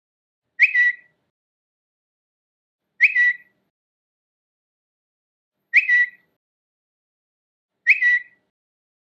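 Twitter notification sound: a short, high two-note chirp, repeated four times at uneven gaps of two to three seconds, with dead silence between.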